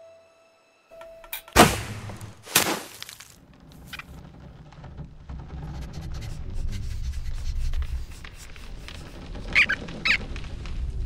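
Cartoon sound effects. A thin drawn-out tone breaks off, then two sharp impacts land about a second apart, the first the loudest. A low rumbling background follows under faint music, with two short squeaks near the end.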